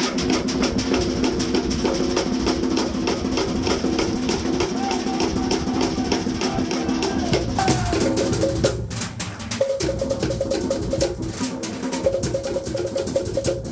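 Cook Islands drumming: drums struck rapidly with wooden sticks in a fast, even beat, with a voice chanting long held notes over it. The drumming breaks off briefly a little before halfway and then carries on.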